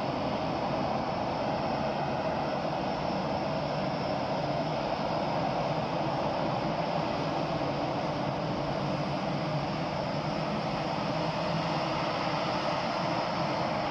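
Steady rushing noise, even in level, with no distinct events.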